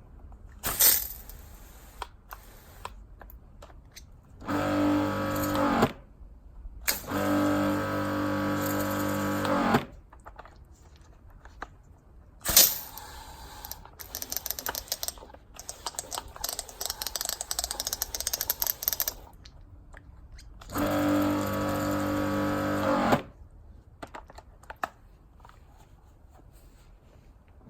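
Karcher K5.700 pressure washer's electric motor humming in three short bursts of one to three seconds, failing to start with a lance attached. Sharp clicks and a rattling buzz lasting several seconds come between the bursts.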